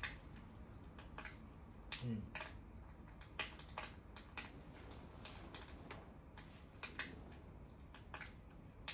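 Crackling fire sounds playing from a fireplace video on a tablet: irregular sharp crackles and pops, a few a second, over a faint low background.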